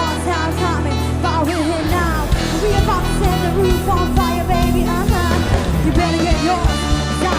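Live band playing a K-pop cover song: drums and bass under a wavering melody line.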